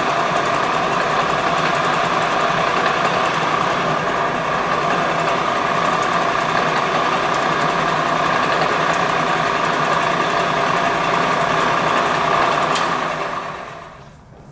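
Victor vertical milling machine's 3 HP variable-speed head running steadily with a constant hum, then dying away about thirteen seconds in as it spins down.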